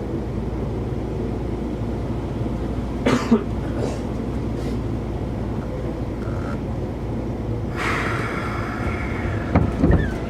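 Running noise heard inside a Keikyu 2000-series train car: a steady low rumble with a few sharp knocks about three seconds in and near the end, and a brief higher tone about eight seconds in.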